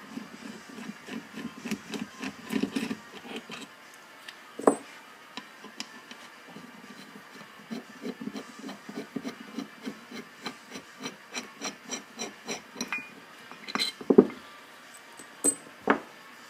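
Rhythmic rubbing strokes, about two to three a second, on disassembled brake caliper parts. The strokes are broken by a few sharp knocks about five seconds in and near the end.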